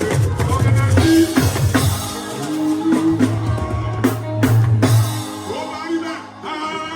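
Live band music: a drum kit with bass drum and snare over a steady bass line and pitched instrument parts, with a few sharp drum hits about four seconds in.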